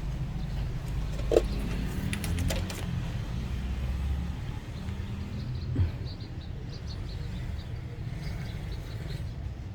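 Steady low rumble of road traffic, with a few small clicks and taps.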